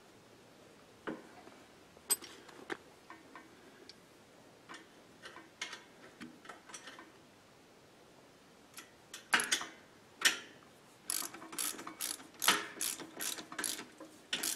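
A socket ratchet wrench clicking as a nut is run down on a suspension bolt through a steel cart frame. The clicks are slow and scattered at first, then come quickly, about three a second, over the last few seconds.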